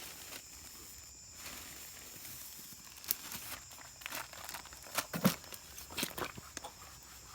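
Handling noises: a few separate light knocks and clicks with some rustling, over a faint steady high-pitched background hum.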